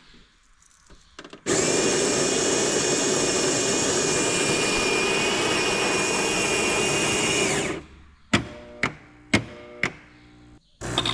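Coffee machine grinding coffee beans: a loud, steady grinding that runs about six seconds and cuts off abruptly. Four sharp clicks follow about half a second apart, and near the end the machine's pump starts with a steady hum.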